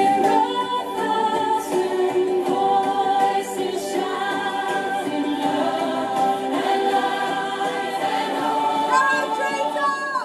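A song sung by several voices together over a musical backing, with two women singing along.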